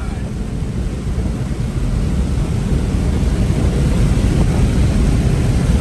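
Inside a car moving fast on a highway: a deep, steady rumble of engine, tyres and wind that grows louder as the car speeds up.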